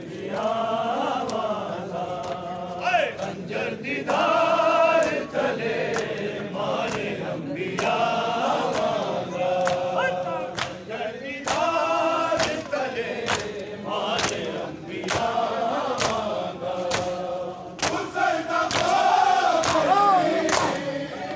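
A crowd of men chanting a noha in unison, with sharp slaps of hands on bare chests keeping a steady beat about three times every two seconds: Shia matam, ritual chest-beating in mourning.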